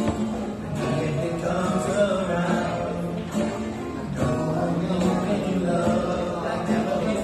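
Music: a cover of a pop love ballad, sung over plucked guitar accompaniment.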